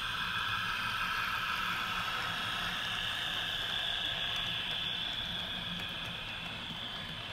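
HO-scale model train running close by: the steady whir of the locomotive's motor and the rolling of its wheels on the track, easing off a little near the end as the cars go past.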